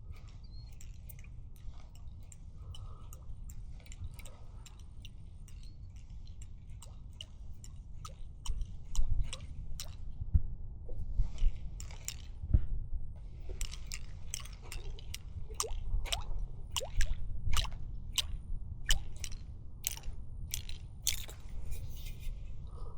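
Wind rumbling on the microphone, with irregular crunching and clicking noises that get louder about eight seconds in.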